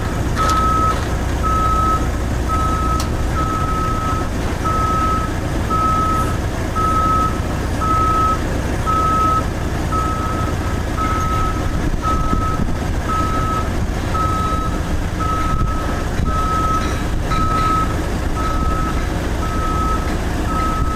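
Motion alarm on construction machinery beeping steadily, a single tone about once a second, over a machine engine running.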